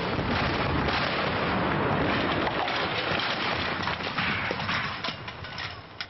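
A large explosion set off with a plunger detonator: a long, loud, noisy blast with crackling through it, dying away near the end.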